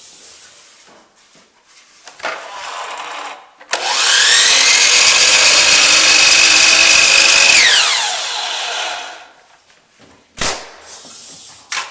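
An electric power saw spins up with a rising whine, cuts wood steadily for about four seconds, then winds down. A single sharp knock comes near the end.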